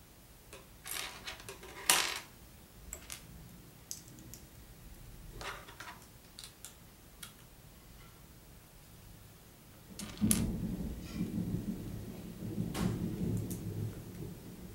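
Small plastic Lego bricks clicking and clattering as they are handled and pressed together, with a sharp click about two seconds in. From about ten seconds in there is a denser, louder stretch of rustling and clatter.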